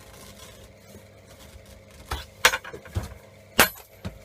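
Hammer blows bashing apart the metal parts of a MIG welding torch being stripped for scrap: a quiet start, then about six sharp metallic clanks in the second half, one of them ringing briefly.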